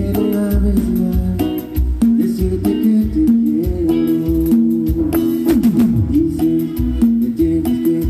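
Live cumbia band playing through the stage PA: electric bass, guitars, keyboard and hand percussion over a steady beat.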